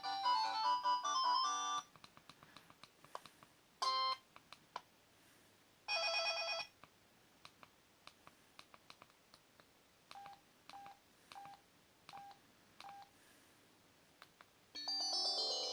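Preloaded ringtones of a Samsung N620 mobile phone playing through its small speaker. One melody ends about two seconds in, followed by scattered clicks, two short tone blips and a row of five short beeps at one pitch, and a new ringtone melody starts near the end.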